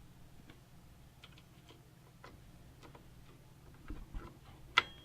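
Scattered light clicks and taps of computer parts being handled and fitted into a small PC case, with a few soft thumps and one sharp, louder click near the end.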